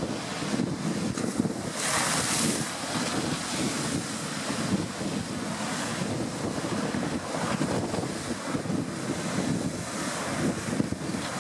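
Storm waves on the River Mersey breaking against the promenade sea wall, with strong wind buffeting the microphone. A louder hissing surge comes about two seconds in.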